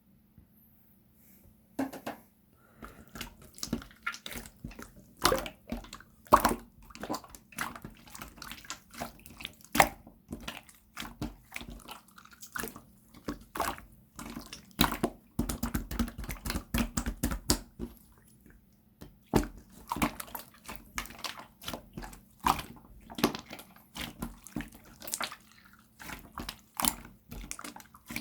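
Translucent jiggly slime being squished and worked by hand: a run of wet clicks, pops and squelches. About halfway through there is a few-second stretch of thicker, lower squelching.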